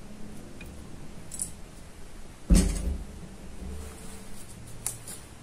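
A single hollow thump about halfway through as a plastic water bottle is set down on a wooden table, with a few small clicks near the end over faint room noise.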